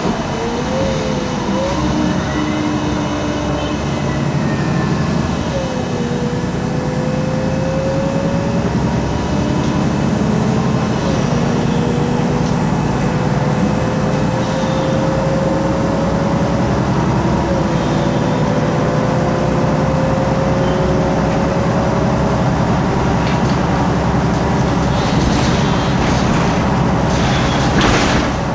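Cabin of an articulated MAN Lion's City G bus under way, with its MAN E2876 CNG engine and ZF Ecolife six-speed automatic gearbox: a steady rumble under a whine whose pitch climbs slowly and drops back several times as the gearbox shifts up. A few knocks and rattles near the end.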